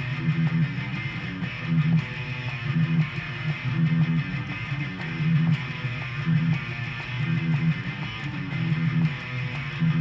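Electric guitar playing a rock riff, with loud low notes coming back in a repeating rhythm about once a second.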